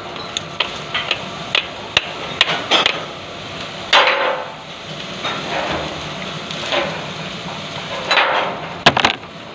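Irregular sharp taps and knocks, with two longer scraping sounds about four and eight seconds in.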